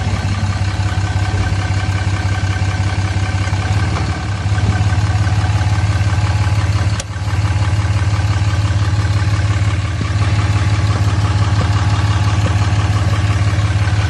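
Dodge Ram 2500 pickup's engine idling steadily, heard from underneath the truck, with one sharp tap about seven seconds in.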